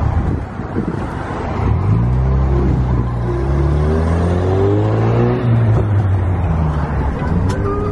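Car engine accelerating over road noise, heard from inside the moving car. About two seconds in, its hum starts rising slowly in pitch, then levels off.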